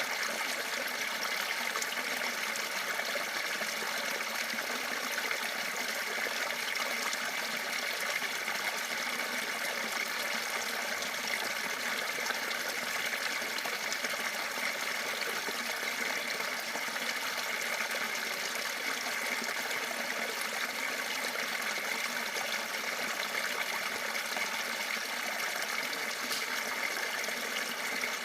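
Water of a river cascade falling and running, a steady, unbroken rush.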